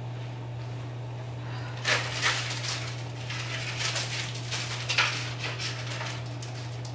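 Kitchen handling noises: a few soft knocks and rustles of items being moved, over a steady low hum.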